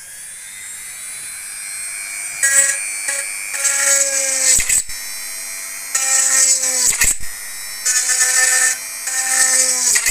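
Handheld electric rotary tool (INGCO mini grinder) running at speed with a steady high whine. About half a dozen short bursts of grinding come as the spinning bit is pressed into the aluminium can bottom, piercing the burner holes of a homemade can stove.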